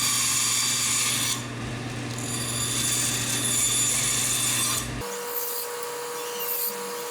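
Power saw running and cutting cedar strips into small squares: two long cuts with a short break between them over a steady motor hum. About five seconds in the sawing stops abruptly and gives way to a quieter steady hum.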